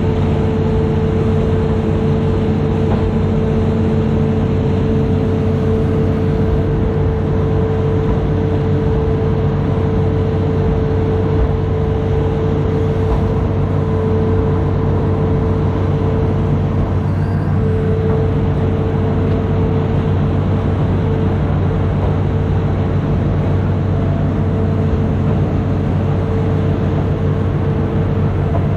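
Amphibious excavator's diesel engine running steadily under load, with a steady whine above the engine note.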